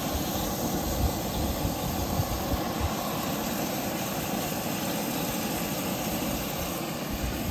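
Shrimp, scallops and asparagus sizzling in a skillet on a propane camp stove, a steady hiss over a constant low rumble.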